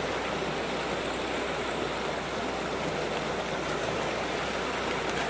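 Stream water rushing steadily over rocks.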